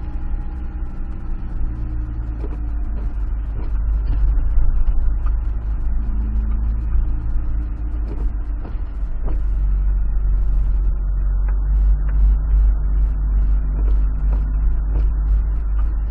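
Car engine and rumbling road noise heard from inside the cabin while driving up a wet street. The engine note shifts in pitch a few times, with a few short knocks from the car going over the road.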